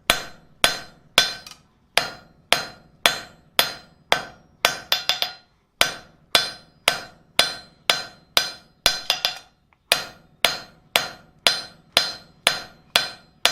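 Blacksmith's hand hammer striking hot steel on an anvil at about two blows a second, each blow ringing briefly, some followed by a quick lighter tap, with a short pause about six seconds in. The steel is being drawn out into a thin tapered pane with half-on, half-off blows.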